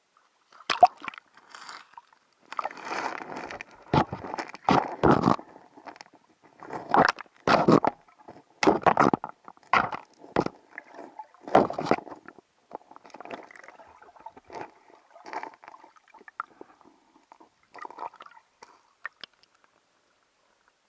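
Water sloshing and gurgling around a camera held at the waterline and dipped under the surface, in irregular splashy bursts that grow fainter and sparser after about twelve seconds.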